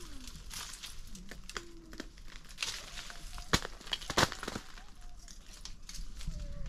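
Irregular crackling and snapping of dry material being handled, with two louder sharp cracks about three and a half and four seconds in.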